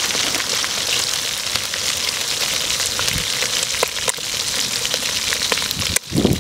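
Pork belly pieces deep-frying in hot oil: a steady sizzle scattered with many small crackles and pops. The sizzle breaks off for a moment near the end.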